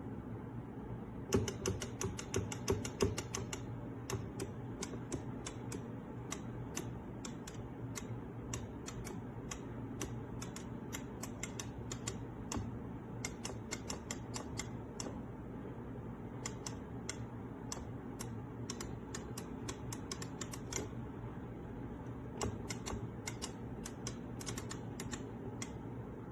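Mayflash F300 arcade fight stick being played: its buttons and lever clicking in quick runs of rapid presses, over a steady low hum.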